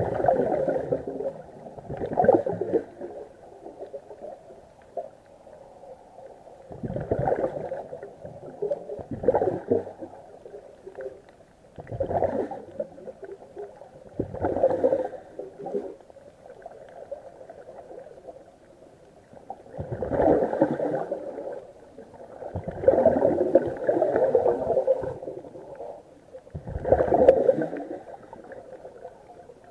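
Scuba regulator exhaust: a diver's exhaled breath bubbling out underwater in gurgling bursts of about a second, every two to three seconds, with quieter pauses for each inhale.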